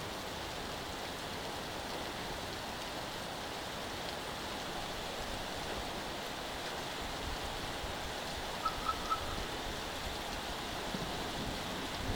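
Heavy rain falling steadily, an even hiss. About nine seconds in, three short high beeps sound in quick succession.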